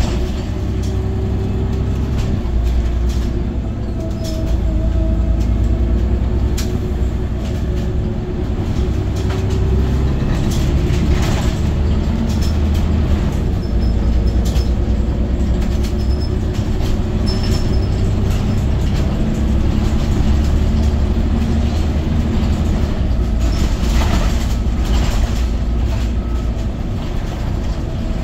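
Cabin sound of a Scania OmniCity city bus under way: a steady low engine rumble with a whine that drifts slowly in pitch, and occasional short clicks and knocks from the body.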